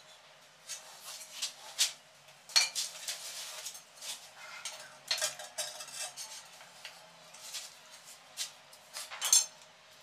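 Irregular sharp clinks and short scrapes of hard ceramic tile and hand tools being handled while tiling. The loudest knocks come about two and a half seconds in and again near the end.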